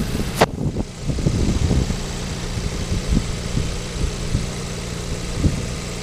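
Tuned 2015 Audi S3's turbocharged four-cylinder engine idling steadily, with one sharp knock about half a second in.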